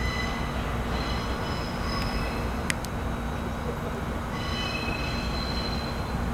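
Train moving off along the rails with a steady low rumble, high-pitched wheel squeal that comes and goes, and one sharp click about three seconds in.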